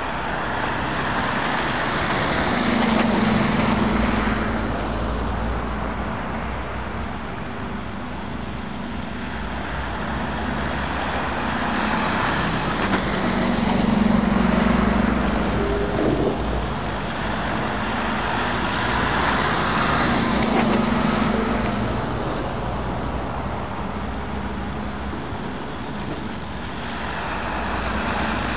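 British Army MAN SV military trucks driving past one after another on a wet road: diesel engines running under a steady hiss and spray of tyres through puddles, the sound swelling and fading as each truck goes by, about four times.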